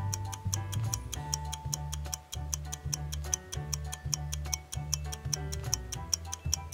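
Countdown timer music: a steady clock-like ticking, about four ticks a second, over a simple bass line and a few light melodic notes.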